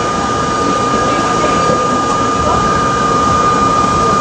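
R32 subway train running along the track: a steady rumble of wheels and running gear with a steady high whine over it.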